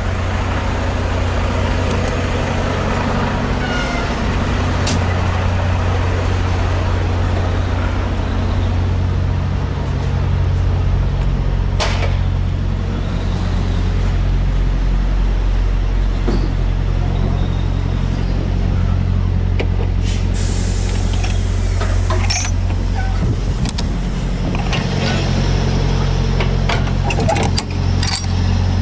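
Semi truck's diesel engine idling steadily, with scattered knocks and clicks over it. Near the end come several quick metal clanks as the trailer's rear-door latch bar is handled.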